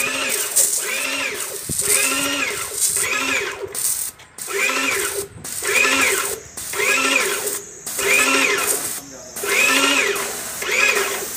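Airless paint sprayer's pump cycling while the spray gun is in use: a steady pulsing, its pitch rising and falling with each stroke about once every three-quarters of a second, over a hiss, with a few brief breaks.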